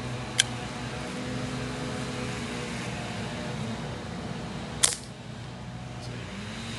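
A single shot from a Brocock Concept Lite .22 PCP air rifle, a sharp crack about five seconds in, over a steady low hum. A lighter click comes shortly after the start.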